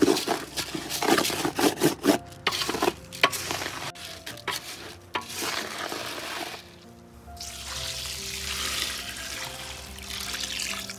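Raw samba rice being stirred in butter oil in a large metal pot with a coconut-shell ladle: quick, repeated scraping and rustling of the grains against the pot, with a light sizzle. From about seven seconds in, coconut milk is poured into the rice in a steady stream. Background music plays throughout.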